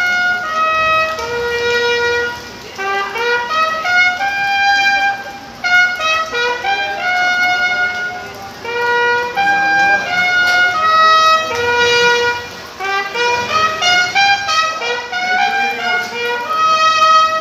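A bugle (clarim) played solo, a continuous melody of clear, separate held notes that step up and down, with only brief breaths between phrases.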